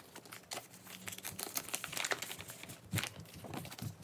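Plastic binder sleeves crinkling and rustling as large photo postcards are slid into a one-pocket page and pressed flat by hand, with a sharper tap about three seconds in.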